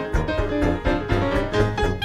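Background music led by piano, with a steady run of notes over a strong bass.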